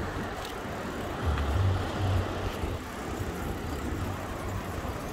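Wind buffeting the microphone and tyre noise from a bicycle riding on a paved path, with an uneven low rumble that swells and fades.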